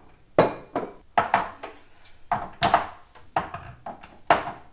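Spice jars knocking and clattering as they are picked up from the counter and set onto a cabinet shelf: about ten sharp knocks spread across a few seconds.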